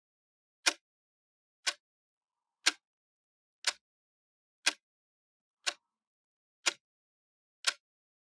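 Clock ticking once a second, each tick a single sharp click with silence in between; eight ticks.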